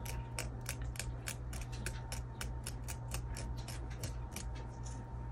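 Fingers picking and snapping old leaf stubs off an African violet's stem: a quick run of small crisp clicks, about four a second, stopping about four and a half seconds in, over a steady low hum.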